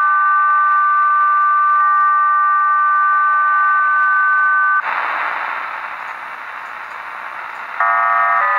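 Shortwave reception of the HM01 Cuban numbers station: a steady two-tone signal sounds, cuts off about five seconds in, and leaves radio static. Near the end a multi-tone digital data burst begins, its set of tones shifting in steps.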